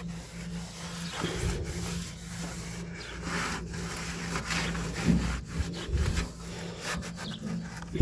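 Hand scrubbing inside the body of a Taylor Dunn Tee-Bird cart: a run of irregular back-and-forth rubbing strokes, over a faint steady hum.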